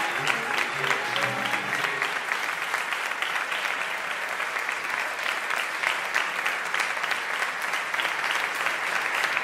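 Audience applauding steadily, a dense patter of many hands clapping, while the last held notes of the ensemble's music fade out in the first couple of seconds.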